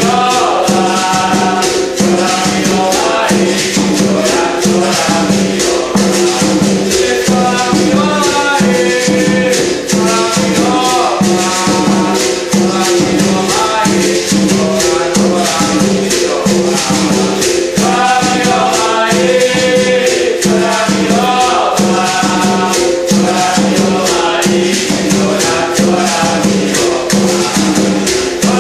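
Capoeira-style music: a berimbau viola plays a repeating rhythm against a rattling shaker and a tall hand drum, with a voice singing phrases over it.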